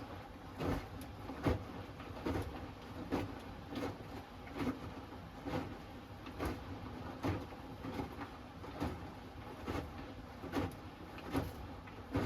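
Hoover Axi 10kg front-loading washing machine in the wash phase of its Rapid 30-minute programme, the drum tumbling the laundry. A swishing thump of falling wet laundry comes about every 0.8 s over a steady low machine sound.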